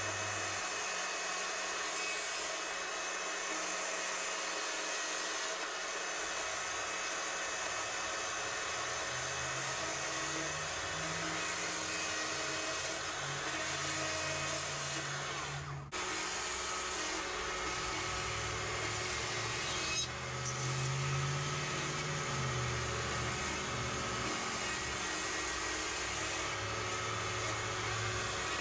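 Battery-powered Stihl chainsaw running under the trigger and cutting into the wood of a carving, with a steady electric motor whine and chain noise. It drops out briefly just past halfway, then runs on.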